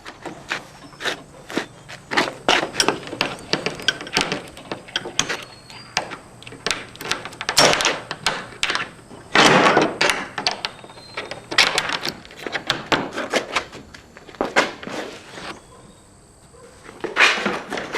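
Irregular knocks, thuds and clatter of objects being handled and set down, with a longer scraping rush about nine to ten seconds in.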